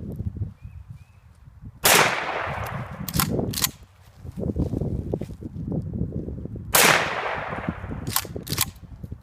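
Two loud gunshots about five seconds apart, each ringing out for over a second and each followed by two quicker, fainter sharp cracks.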